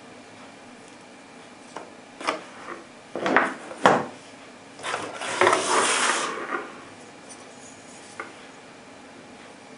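Hands handling a flashlight and its packaging: a few clicks and knocks, the loudest about four seconds in, then a scrape or rustle lasting about a second and a half, and one last click near the end.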